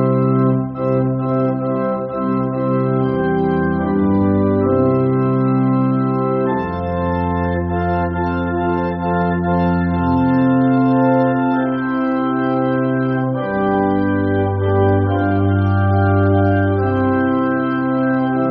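Organ music: slow, sustained chords, each held a second or two before moving to the next, as a closing postlude.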